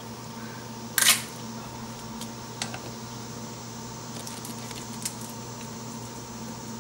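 Blue crab shells being cracked and pulled apart by hand: one sharp crack about a second in, then several smaller clicks and snaps, over a steady low hum.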